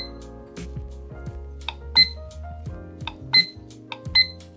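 IKEA Plugget digital alarm clock giving short high beeps as its plus/minus buttons are pressed to change the hour format, four beeps in all, over background music.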